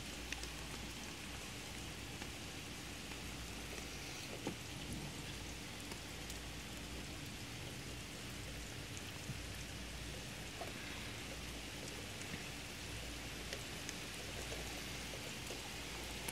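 Heavy rain falling steadily, an even hiss with scattered sharper ticks of individual drops.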